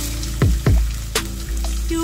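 Chopped onions sizzling in hot cooking oil in a pot on a gas stove, with background music playing over it.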